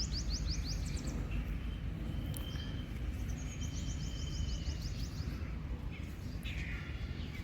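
Birds calling in quick runs of short, high chirps, over a steady low outdoor rumble.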